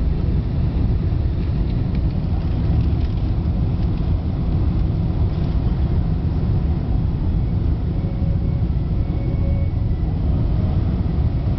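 Steady low rumble of a Boeing 747-400 cabin on final approach: jet engine and airflow noise with the wing flaps extended.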